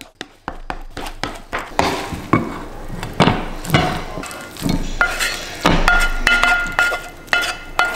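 A wooden spatula knocking and scraping against a nonstick frying pan as scrambled eggs are stirred, then pushed out of the tipped pan onto a plate: a run of irregular knocks and scrapes. A steady high tone joins in about halfway through.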